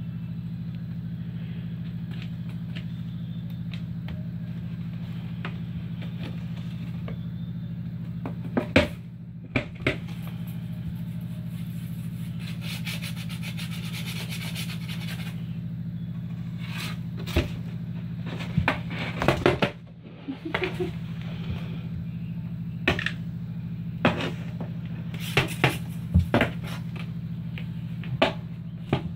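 Cat playing with a peacock feather on a cardboard box: scattered sharp taps and thumps of paws and feather on the cardboard, a cluster of them about two-thirds of the way in, and a few seconds of scraping against the cardboard near the middle. A steady low hum runs underneath.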